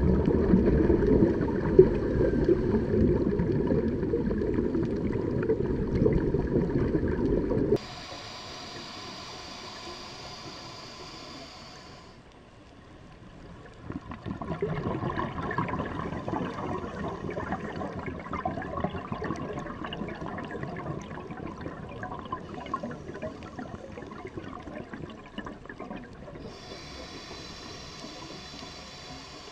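Underwater water noise recorded through a dive camera, with a scuba diver's exhaust bubbles: a loud low rush that cuts off abruptly about eight seconds in, then a quieter hiss, and from about the middle onward fainter, grainy bubbling.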